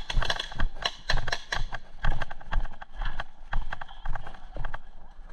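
Footsteps of a person walking across dry grass, a few steps a second, at a steady pace.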